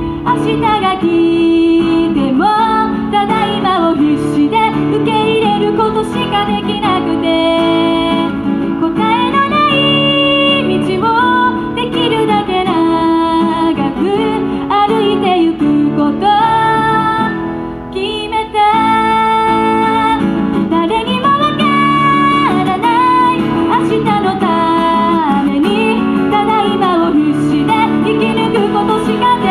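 A woman singing a song live while strumming an acoustic guitar, the voice and chords continuous apart from a brief dip about two-thirds through.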